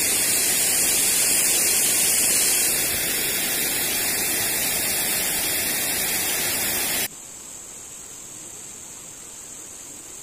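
Steady loud rushing noise that cuts off abruptly about seven seconds in, giving way to a much quieter steady high hiss.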